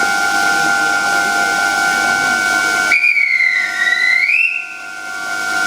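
Keisei electric train's external warning chime sounding one high tone about three seconds in; it dips in pitch and then rises before stopping after about a second and a half. A steady high tone runs underneath throughout.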